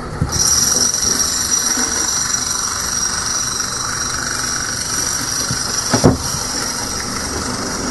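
A small motor's steady whirr with a high whine switches on just after the start and runs on, with a short thump about six seconds in.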